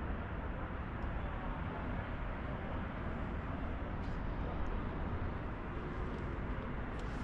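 Steady outdoor background noise: a low rumble with a hiss over it and a few faint ticks.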